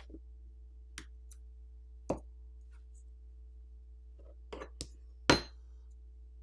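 A handful of short, sharp clicks and taps from small repair tools and smartphone parts being handled during disassembly, the loudest about five seconds in.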